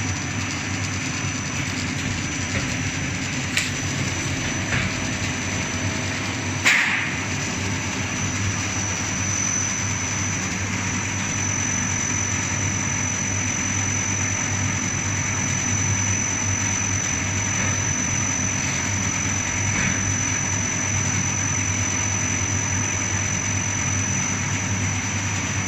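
Steamed-bun production-line machines running steadily: a continuous motor hum with a thin high whine, and one sharp click about seven seconds in.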